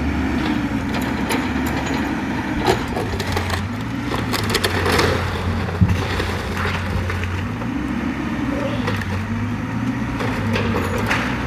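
Caterpillar 305 mini excavator's diesel engine running, its note swelling and easing every few seconds with hydraulic load, while wooden house framing cracks and splinters in scattered sharp snaps as it is torn down.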